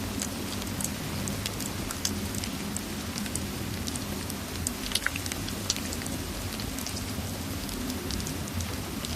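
Steady rain mixed with a crackling fireplace, with scattered sharp crackles. A few louder pops come about five seconds in.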